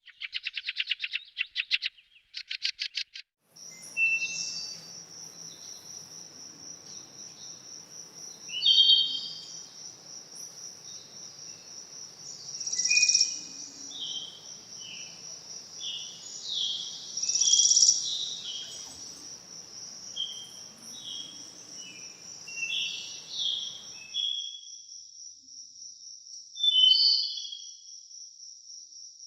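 Forest birds chirping and calling in short phrases over a steady, high-pitched insect drone. It opens with a few quick pulsed trills, and a faint low hum underneath cuts off about 24 seconds in.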